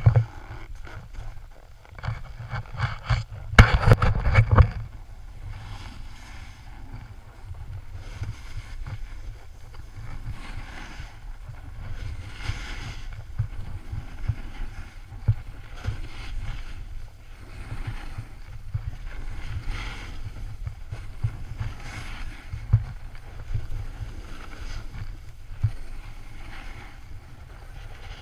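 Wind buffeting an action camera's microphone on a run down a snowy slope, with a steady low rumble. A few loud bumps and rustles come around four seconds in. After that, the hiss of the rider's edges scraping the snow swells about every second and a half as they turn.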